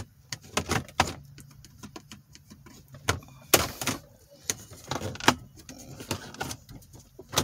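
Plastic dashboard trim strip on an Infiniti G35 being pried up with a plastic trim tool: a run of irregular sharp clicks and snaps as its retaining clips pop loose, the loudest about three and a half and five seconds in.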